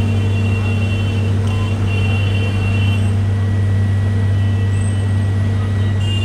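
Street traffic: a steady low engine hum, with a high whining tone that drops out briefly about a second in and again near the end.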